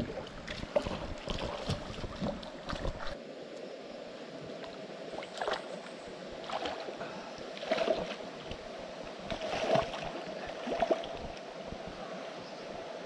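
Water splashing and sloshing as people move through a shallow stream, with a handful of louder splashes as a man wades in and sits down in the water.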